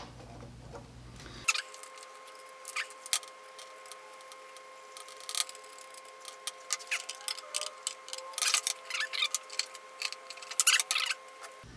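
Irregular small clicks and rattles of hard plastic being handled, as a 3D-printed strain-relief clip is worked onto a heated bed's braided-sleeve cable, over a faint steady hum.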